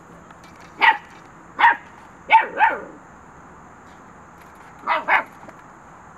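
Xoloitzcuintli puppy giving six short, high barks: two single barks, then a quick pair, and after a pause another quick pair near the end.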